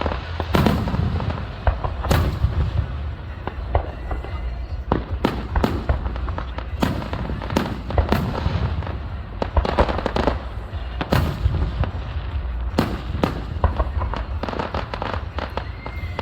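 Aerial fireworks shells bursting one after another, sharp bangs coming several times a second over a steady low rumble.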